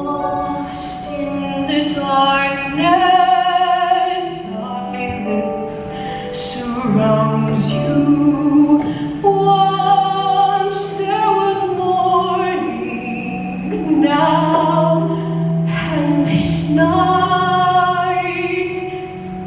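Women's choir singing, with long held notes.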